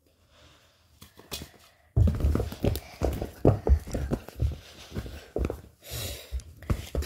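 Near quiet for about two seconds, then a fast, irregular run of soft thumps and fabric rustles: plush hand puppets being bashed together and against a carpeted floor in a mock fight.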